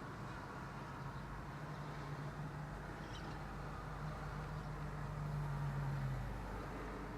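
Low drone of a distant engine, likely a passing vehicle, building up and rising slightly in pitch, loudest about five to six seconds in and then fading out, over a steady outdoor background hiss.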